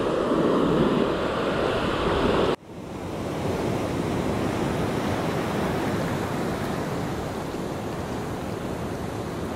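Ocean surf washing up a sandy beach, with wind on the microphone. The sound cuts off abruptly about two and a half seconds in and picks up again as a quieter, steady wash of surf.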